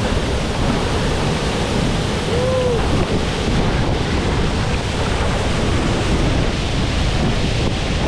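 Powerful waterfall crashing into its plunge pool: a loud, steady rush of falling water, with wind and spray buffeting the microphone.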